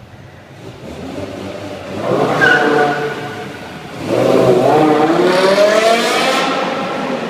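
BMW M5 engine revving up hard twice, the pitch climbing each time. The second run is longer and louder, then it eases off near the end.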